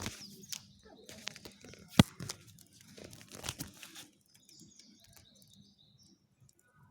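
Campfire wood crackling and snapping in irregular pops, with one sharp, loud snap about two seconds in. The crackling thins out to scattered faint ticks after about four seconds.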